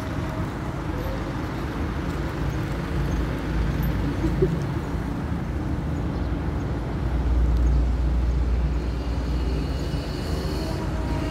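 Outdoor background noise: a steady low rumble that swells for a couple of seconds in the second half, with a faint steady hum joining near the end.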